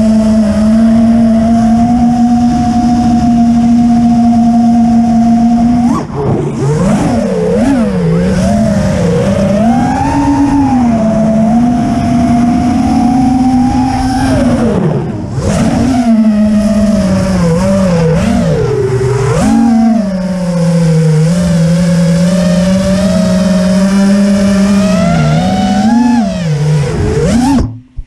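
FPV quadcopter's brushless motors and propellers whining, picked up by the onboard camera. The pitch holds steady for the first few seconds, then rises and falls repeatedly with the throttle through turns. It cuts off suddenly near the end as the quad comes down onto the grass.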